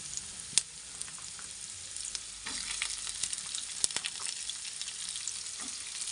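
Oil sizzling and crackling in a kadai (wok) as julienned carrots go in on top of frying chopped garlic and ginger. The sizzle grows louder about two and a half seconds in, with two sharp clicks, one about half a second in and one near four seconds.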